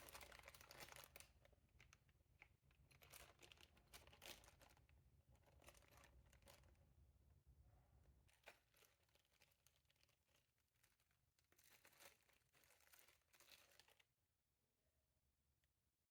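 Faint crinkling and rustling of packaging being handled and unwrapped, in irregular crackly clusters, stopping about two seconds before the end.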